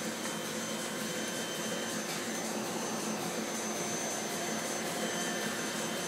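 Heidelberg SORMZ sheet-fed offset printing press running, a steady mechanical whir with a faint high whine over it.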